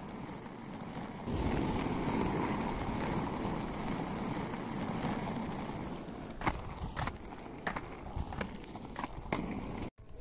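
Roller skate wheels rumbling steadily over a rough, worn road surface, louder from about a second in. In the second half come several sharp clicks, and the sound cuts out briefly near the end.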